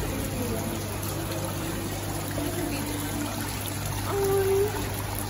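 Decorative indoor fountain: water trickling and splashing steadily over artificial rocks.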